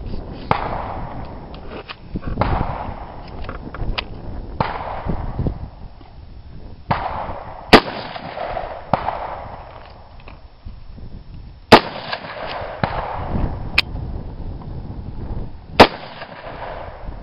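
AR-15-style (Spikes M4) rifle firing single shots in .223: three loud shots about four seconds apart in the second half, with fainter cracks in between.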